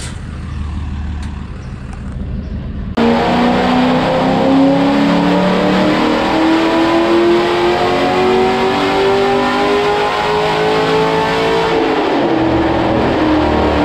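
Pontiac G8 GT's naturally aspirated V8 making a wide-open-throttle dyno pull. About three seconds in it comes in loud and its pitch rises steadily for about eight seconds, then drops as the throttle is released near the end.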